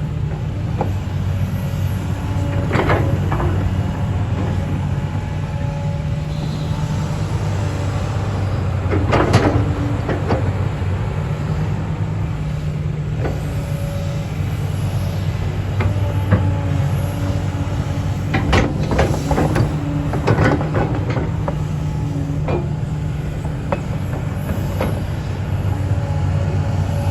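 XCMG 370 CA excavator's diesel engine running steadily, with scattered sharp metallic clanks and squeals from the machine working, a cluster of them about two-thirds of the way through.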